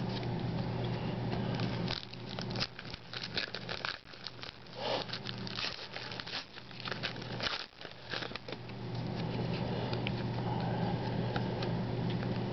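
Football trading cards being handled and flipped through: a dense run of irregular rustles and flicks of card stock, with a steady low hum underneath.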